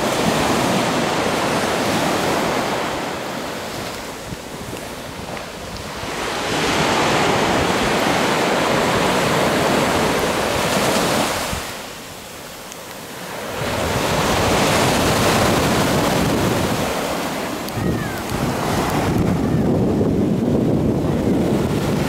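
Sea surf breaking on a sandy beach, waves rushing up the shore and drawing back in long swells, three big surges with quieter dips between. Wind rumbles on the microphone.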